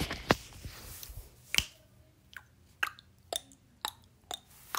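A run of short, sharp taps, about two a second, starting about a second and a half in, after one earlier tap: small plastic toy figures being knocked or hopped against a hard surface as they are moved by hand.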